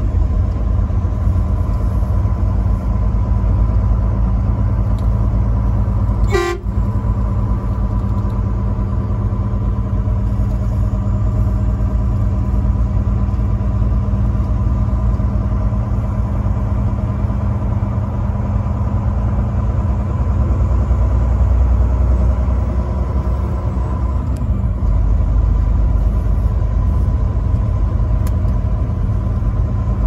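Truck engine and road noise heard inside the cab while driving, a steady low rumble with a constant drone. There is one short, sharp sound about six seconds in. The rumble deepens and strengthens for a few seconds before dropping, with a short falling tone, around twenty-four seconds in.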